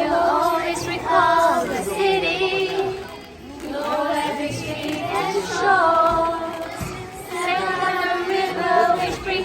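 A song sung over music, with long held notes in phrases and a short lull about three seconds in.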